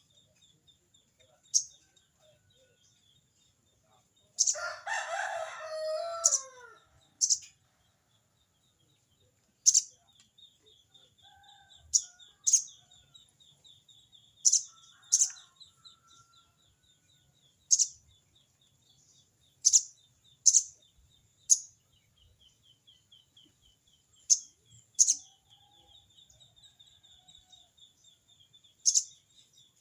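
Sogon bird calling: sharp, high single chips every second or two, with one longer, harsher chattering call about five seconds in, over a faint, fast, high ticking trill. The chatter is the bird's 'crecet cerecet' call to a rival.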